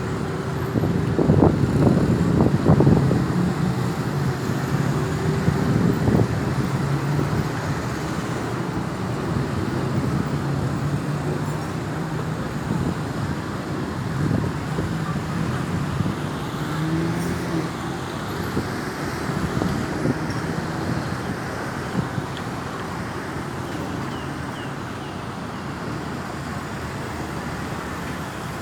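Road traffic: vehicle engines and tyre noise as cars pass, loudest in the first few seconds and slowly fading.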